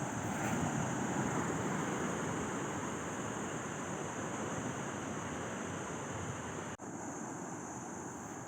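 Steady wash of wind and surf noise at the seashore, with wind buffeting the microphone. The sound drops out for an instant about two-thirds of the way through.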